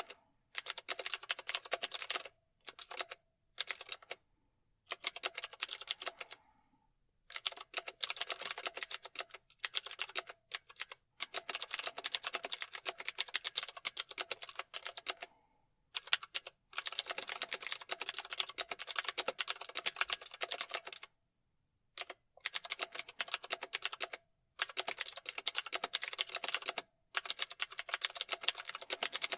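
Typing on a computer keyboard: rapid, continuous keystrokes in runs of a few seconds, broken by brief pauses.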